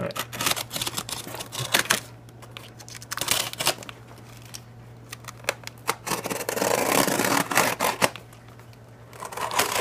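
Packing tape on a cardboard shipping box being slit and scraped open with a pen-shaped tool, with scratching and rustling of the tape and cardboard in irregular strokes and a longer stretch of scraping about two-thirds of the way in. A steady low hum runs underneath.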